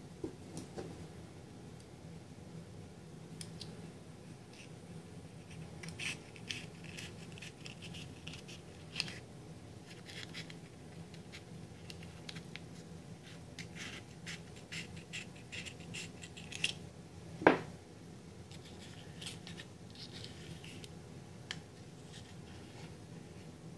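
Small scissors snipping the leathery shells of ball python eggs, with fingers scratching over the shells: a run of light snips and scratches, and one louder sharp click about three-quarters of the way through.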